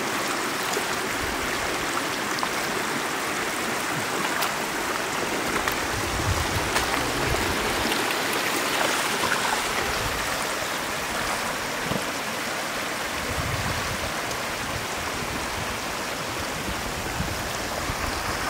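Steady rush of water running through a shallow flooded field, with scattered small splashes and knocks.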